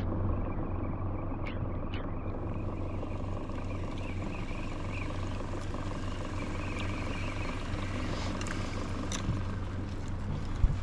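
A small boat's outboard motor running steadily with a low, even hum, a few faint clicks over it and a short thump near the end.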